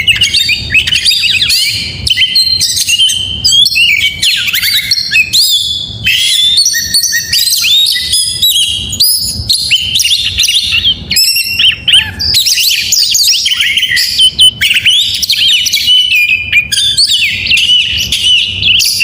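Oriental magpie-robin singing loud and nonstop, a varied, rapid stream of whistles, trills and chirps.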